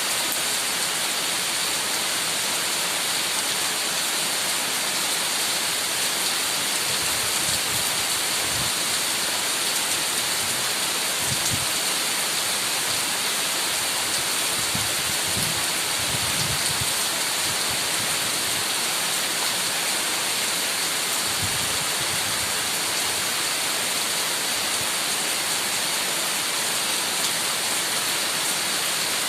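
Heavy rain falling steadily, a dense, even hiss of drops, with a few brief faint low rumbles partway through.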